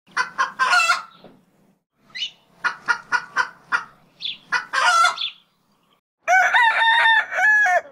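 Chickens clucking in short runs of calls, then a rooster crowing, one long call in several parts, starting a little after six seconds in.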